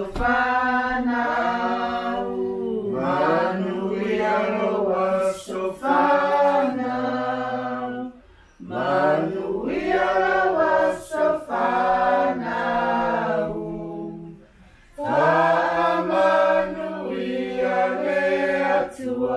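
A group of voices singing together without accompaniment, in sustained phrases with two short breaks, about 8 and 14 seconds in.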